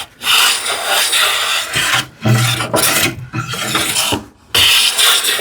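Hand plane taking shavings along a wooden panel in four strokes of about a second each, each a steady scraping cut with a short pause between. The cuts are even and consistent, a sign that the surface is planed level down to the line.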